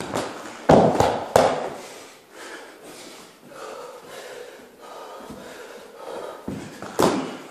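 A flying kick thuds into a standing training dummy and the person crashes down to the carpeted floor, a burst of several knocks and thuds in the first second and a half. Quieter scuffling and hard breathing follow, then two more thuds near the end.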